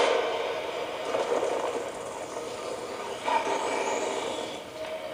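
Movie-trailer sound effects playing through a CRT television's speaker: a rushing, rumbling noise that swells and fades, with a sudden hit about three seconds in.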